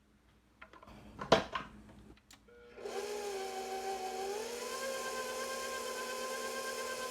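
A few knocks and a clatter in the first two seconds. Then a KitchenAid stand mixer starts up about three seconds in and runs steadily, its pitch stepping up slightly about a second later as the speed is raised.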